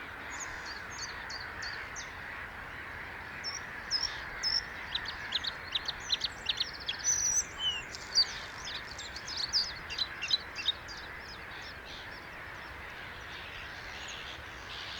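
Bluethroat singing: a fast, varied run of short high notes with a buzzy stretch in the middle, starting a few seconds in and stopping after about seven seconds. A steady background rush runs underneath.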